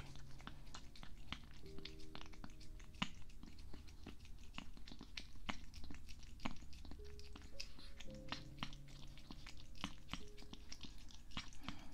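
A cat licking and chewing a squeeze-tube cat treat right at a binaural microphone: many quick, irregular little mouth clicks and smacks.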